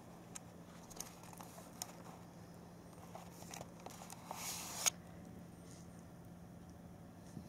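Quiet room with a faint steady hum, scattered light clicks and rustles, and a short breathy hiss about four and a half seconds in that ends in a sharp click.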